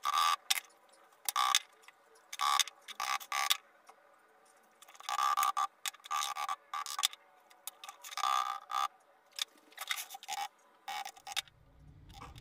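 Hand tool working wet cement mix in a plastic mould: a run of short, uneven scraping and tapping strokes, some with a light ringing tone, as the mix is settled and finished off.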